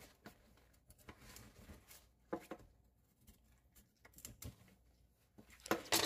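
A kitchen knife trimming the top and root ends off a Korean bunch radish: faint, irregular cuts and knocks scattered through, the strongest a little over two seconds in.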